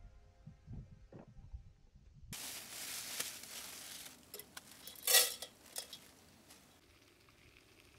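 A backpacking gas canister stove hissing under a metal pot, with a utensil clinking against the pot, the loudest a sharp clank about five seconds in.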